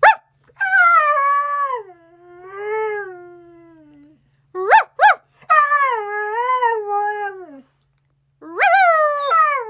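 Husky howling: a long wavering howl that slides down in pitch, then two short sharp calls about five seconds in, then two more long wavering howls.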